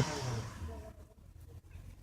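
Stuck car's engine revving in the snow, then dropping off sharply right at the start as the gas is let off, the revs falling away within half a second to a faint low idle.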